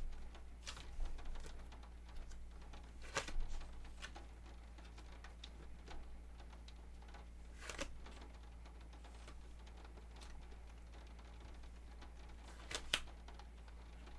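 Scattered light clicks and taps, a few single ones and one close pair near the end, over a faint steady room hum.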